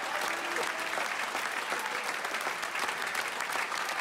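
Audience applauding steadily, many hands clapping at once in an even, unbroken patter.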